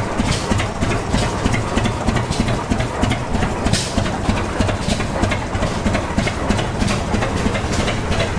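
Antique engine running at a steady speed with a regular knocking rhythm.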